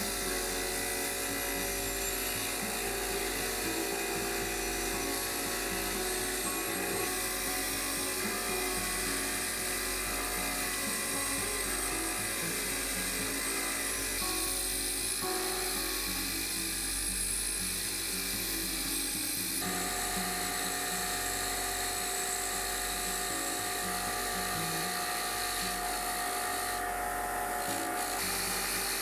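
Bench grinder running with a wire wheel as small steel parts of an old Millers Falls eggbeater hand drill are pressed against it to strip rust and grime: a steady motor whine with the wire bristles scratching across metal, the tone shifting as the part is moved against the wheel.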